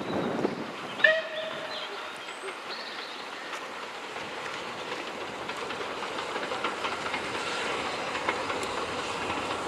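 Rebuilt Bulleid Pacific steam locomotive working a passenger train, its exhaust and running noise growing steadily louder as it approaches. A short whistle blast sounds about a second in.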